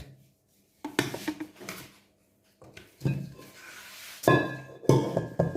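Background music, broken by two short gaps of silence in the first half, with held notes near the end.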